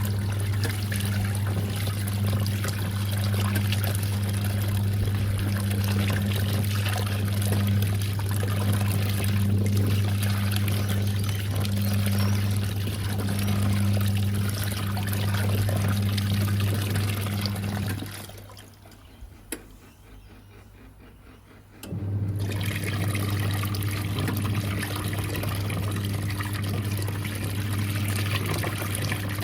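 National NA9450PN pulsator washing machine at the start of its first rinse: water pours into the tub with a steady low electrical hum. The water and hum cut out for about four seconds just past the middle, then start again with a slightly higher hum added.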